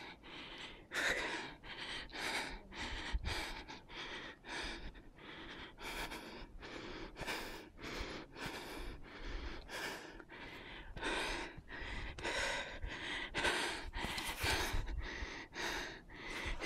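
A hiker's heavy breathing close to the microphone: quick, even breaths in and out, about one and a half a second, out of breath from a steep uphill climb.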